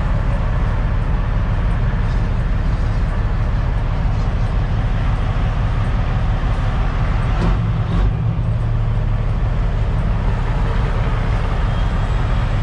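Kenworth T800's Caterpillar C15 diesel engine running steadily, heard from inside the cab as the truck pulls slowly through a turn, with a couple of brief knocks about seven and a half seconds in.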